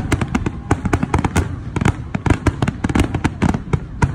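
Fireworks display with many aerial shells bursting together: a dense, rapid string of loud bangs, several a second, overlapping without pause.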